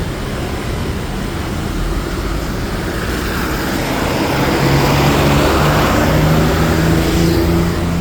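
Motorcycles and cars passing close on a rain-wet road. The engine note and road noise build up through the middle as vehicles go by.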